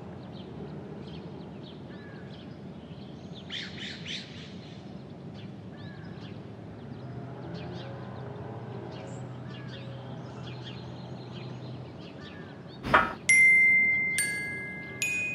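Birds chirping over a steady background hiss. Near the end a sharp click, then bell-like glockenspiel notes ring out, loud and decaying one after another.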